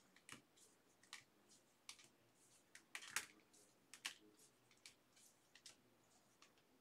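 Faint, irregular clicks and light rustling from baseball cards and their packaging being handled, with one louder click about three seconds in.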